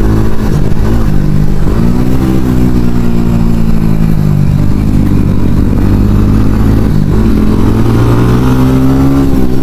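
TVS Ronin 225's single-cylinder engine pulling under load on an uphill climb, heard from the rider's seat. Its pitch dips briefly a couple of times and rises again with the throttle near the end.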